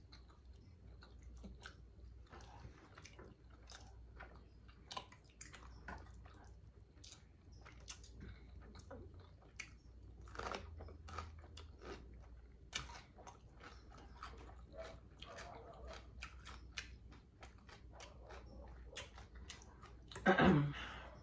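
A person chewing food close to the microphone, with irregular wet, crunchy bites and mouth clicks. A brief louder sound comes near the end.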